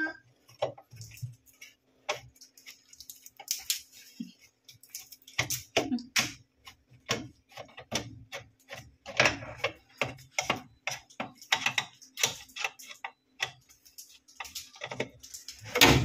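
A screwdriver turning out the screws of a plastic cover inside a washing machine's top panel: a run of irregular clicks and ticks as the blade works in the screw heads and knocks on the plastic, over a faint steady hum.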